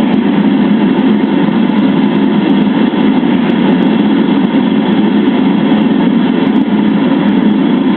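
Home-made metal-melting furnace running with a loud, steady, unbroken noise while it melts zinc.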